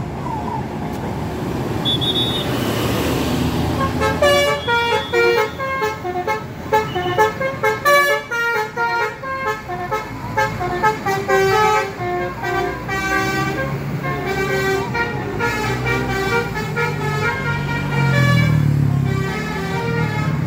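Multi-tone 'telolet' bus horn playing a quick melody of short notes stepping up and down, over the noise of a bus and traffic. The melody starts about four seconds in. Near the end a low engine sound rises and falls in pitch.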